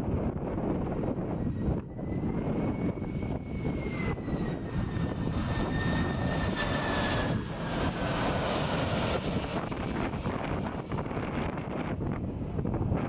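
Airplane taking off and passing by. The engine noise swells to its loudest a little past halfway and then fades, over a steady rumble, with a high whine that falls slowly in pitch as it goes by.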